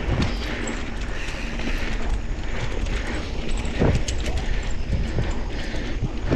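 Mountain bike being ridden: a steady low rumble of wind and tyre noise at the microphone, with frequent small clicks and rattles from the bike.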